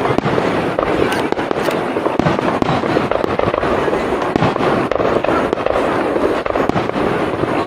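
Star mine fireworks barrage: aerial shells bursting in rapid, overlapping succession, a dense continuous run of booms and crackle with no pause.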